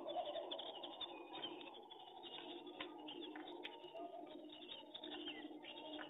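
Feral rock pigeons cooing low, with a louder coo just after the start and another about four seconds in, over faint high bird chirps and a few sharp clicks.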